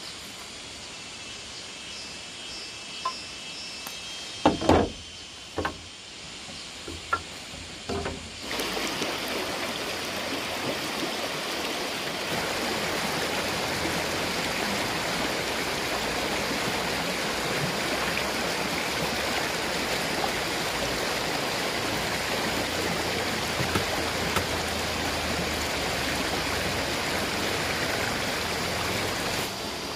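Steady rush of a flowing stream, which comes in abruptly about eight seconds in. Before that, a few sharp knocks stand out over a quieter outdoor background.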